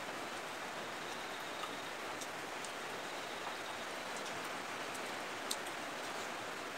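Steady, even hiss like falling rain, with a few faint sharp ticks.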